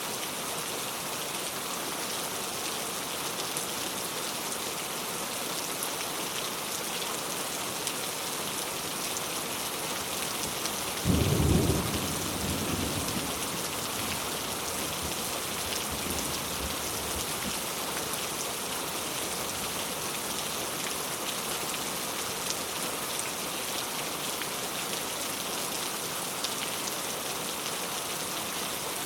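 Heavy rain falling steadily. Partway through there is one sudden clap of thunder that rumbles away over several seconds.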